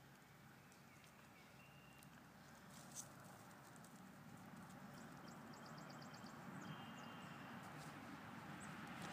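Near silence: faint outdoor background with a couple of faint clicks and a brief high, rapid ticking trill about six seconds in.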